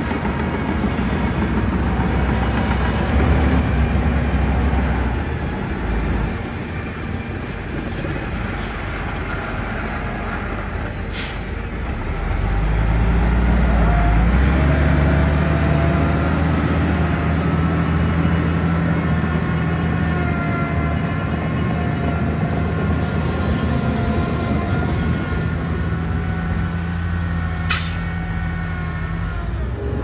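Heavy diesel earthmoving machinery (dump truck or bulldozer) running with a steady engine note. It eases off for a few seconds, then grows louder about twelve seconds in and holds. Two short sharp sounds cut through, one near the middle and one near the end.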